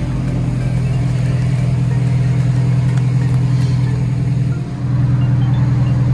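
Mazda Eunos Roadster (NA Miata) four-cylinder engine idling steadily at its exhaust, freshly started from cold. The level dips briefly about four and a half seconds in, then holds.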